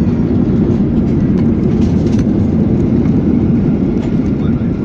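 Steady low rumble inside the cabin of a Ryanair Boeing 737-800 during its landing roll on a wet runway, with engine noise and wheels on the runway.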